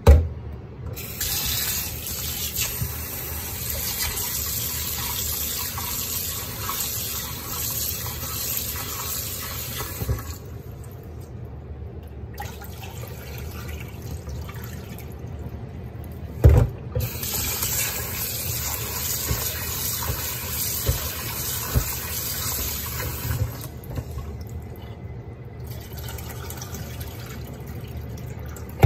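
Tap water running into a glass bowl of mung beans in a stainless steel sink as they are rinsed and the water is tipped out, stopping briefly a couple of times. A few sharp knocks, one right at the start and one about two-thirds of the way through.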